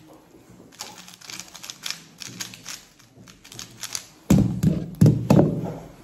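Rapid turning of a 3x3 speed cube: a fast run of light plastic clicks and clacks for about four seconds. Then come heavy thuds, one about four seconds in and another about a second later, as the solve ends with the cube set down and the hands slapping onto the timer.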